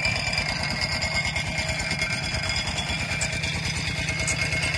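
Engine-driven water pump running steadily as it pumps water out of a fish pond, with a fast, even chugging.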